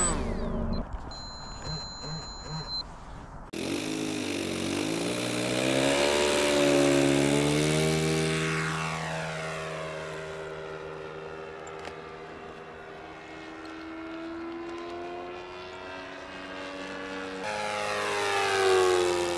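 Radio-controlled model propeller airplane flying passes, its motor and propeller sound rising and falling in pitch as it comes and goes, with a falling-pitch flyby near the end. The first few seconds are quieter.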